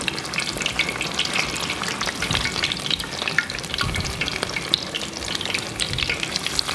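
Battered mozzarella sticks deep-frying in hot oil (about 360°F) in a Dutch oven: a steady, dense sizzle full of small crackling pops, while metal tongs turn them in the pot.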